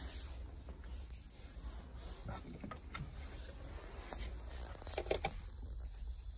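Soft rubbing and light knocks of carpeted trunk trim being handled, over a low steady hum. The loudest knock comes about five seconds in.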